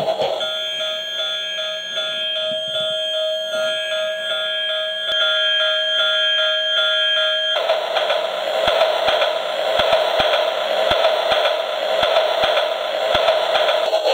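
Battery-powered toy steam locomotive's electronic sound chip playing through its small speaker: steady alarm-like electronic tones pulsing a few times a second, changing about halfway to a busier electronic tune with regular clicks.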